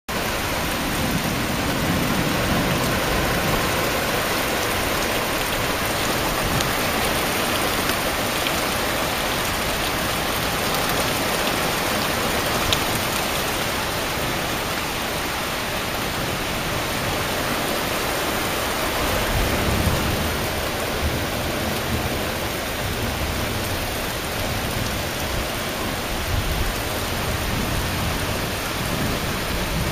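Heavy rain falling steadily on trees, a dense even hiss of water. A brief low rumble swells about two-thirds of the way in.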